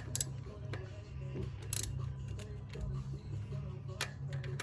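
A few sharp metal clicks as a socket wrench is handled and fitted onto a bicycle wheel's axle nut, three spaced knocks over a steady low hum.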